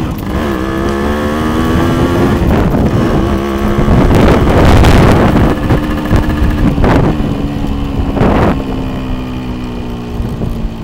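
Small motorcycle engine running under way, its pitch rising over the first couple of seconds and then holding steady, with gusts of wind buffeting the microphone, strongest about four to five seconds in.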